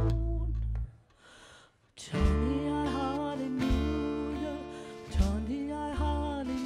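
Live band of acoustic guitar, drum kit and upright bass playing with a singing voice. A held chord and sung note break off about a second in, leaving about a second of near silence, then the band comes back in under long sung notes.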